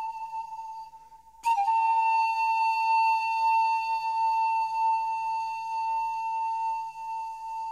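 Background music: a flute-like wind instrument holding long, steady notes. The first note fades out about a second in and a new one starts sharply just after, then is held.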